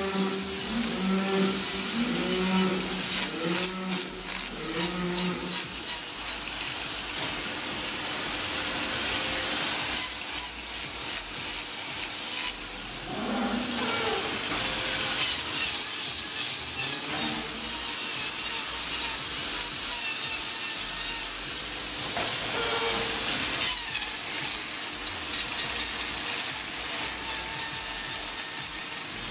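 Hand-held angle grinder with a trimming disc grinding the horn of a cow's hoof: a continuous rough, hissing grind that wavers as the disc is worked over the hoof and dips briefly partway through.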